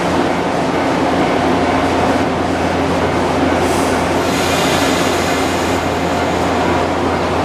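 A Shinano Railway 115 series electric train standing at the platform, its onboard equipment giving a steady, even hum. There is a brief hiss about four seconds in.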